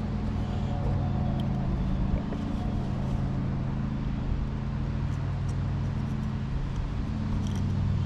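A nearby engine idling with a steady low hum, and a few faint light clicks on top.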